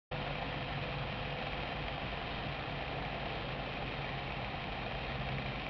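Steady rushing air noise with a low, even hum underneath, starting abruptly at the very beginning and holding constant throughout.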